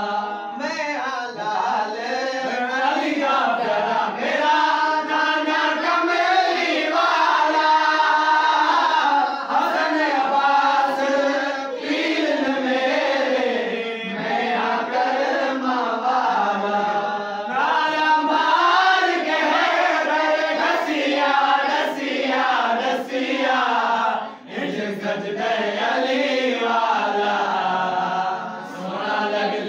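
Several men's voices singing a qasida, a devotional Islamic poem, together in a chanting style, in long sung lines that rise and fall.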